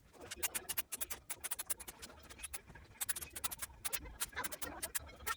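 Rapid, irregular small clicks and scratches of hands and tools working on a mixing console during repair, over a low steady hum.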